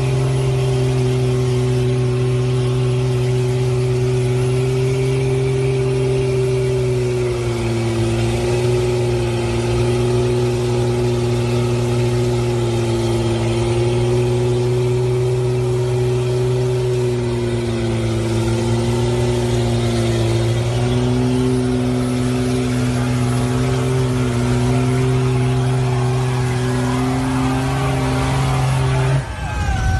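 Lifted mud truck's engine held at high revs in a steady drone as it churns its big tyres through deep mud, the pitch sagging slightly a couple of times. It cuts off suddenly near the end.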